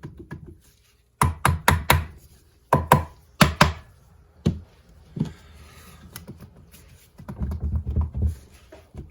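Sharp thunks of a dead blow hammer tapping a two-stroke motorcycle cylinder head loose from its cylinder: a quick run of about four knocks, then two pairs, then a few single ones, with some handling noise of the loosened head near the end.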